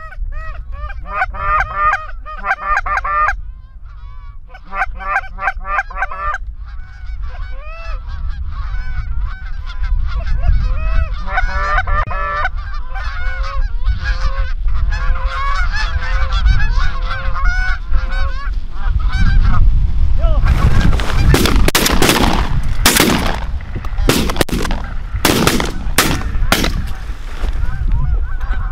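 Canada geese honking and clucking loudly and constantly as a flock works in over the decoys. About twenty seconds in, a rapid volley of roughly eight to ten shotgun blasts, the loudest sounds here, rings out over the calling.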